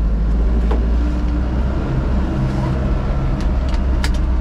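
Fuso Canter light truck's diesel engine running at low speed, heard from inside the cab as a steady low rumble with road noise. Two short sharp clicks come through, one under a second in and one about four seconds in.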